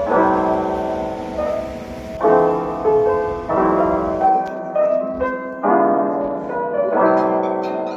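Background music: gentle piano playing sustained chords, a new chord struck every second or two.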